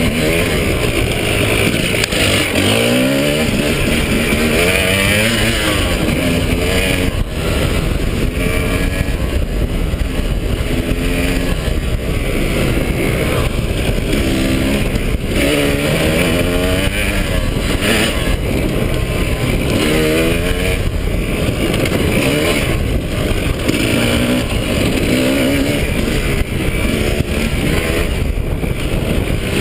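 KTM 300 two-stroke dirt bike engine under hard riding, its pitch climbing and falling back again every couple of seconds as the throttle is worked, over a constant heavy rumble of wind and vibration at the handlebar-mounted microphone.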